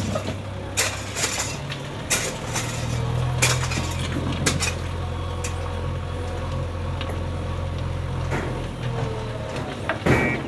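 A heavy machine's diesel engine running steadily on a construction site, its pitch stepping up about three seconds in and dropping back near the end, with repeated sharp metallic clanks and clinks over it.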